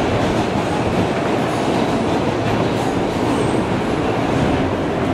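New York City subway train running steadily, heard from inside the car: a continuous rumble of wheels on rail with some clacking over the track.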